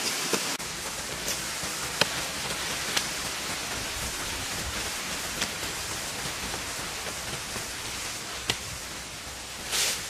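Steady hissing noise with a few sharp clicks, about two and three seconds in and again near the end.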